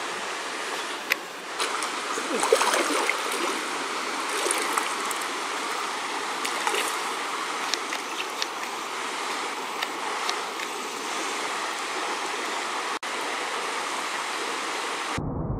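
Shallow, rocky mountain trout stream flowing: a steady rush of water over riffles, with a few brief clicks and splashes. Near the end it cuts abruptly to a duller, muffled sound.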